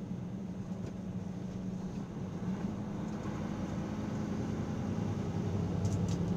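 Steady in-cab engine and road noise from a vehicle cruising along a highway, a low hum that grows a little louder toward the end.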